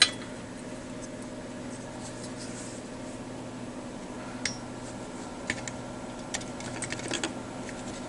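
Small clicks and taps of a multimeter's circuit board being handled and seated into its plastic case: one sharp click at the very start, then a scatter of light clicks in the second half, over a steady low hum.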